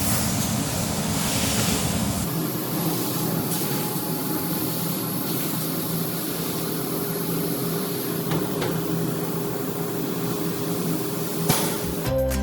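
Prima Power CO2 laser cutting machine running: a steady mechanical hum with a hiss over it and a few faint ticks. Music comes in near the end.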